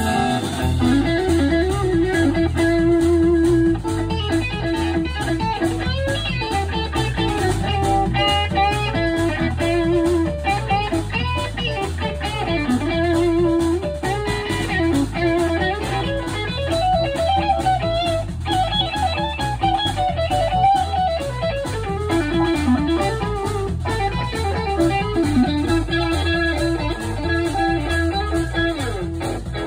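Live band instrumental break in a blues-rock song: an electric guitar plays a lead line of sustained, bent notes over bass guitar, drums and electric piano.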